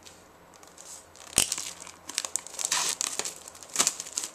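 Packaging crinkling and tearing as a Blu-ray steelbook is unwrapped by hand. There is a sharp loud snap about a third of the way in, a busy stretch of crinkling, and another sharp snap near the end.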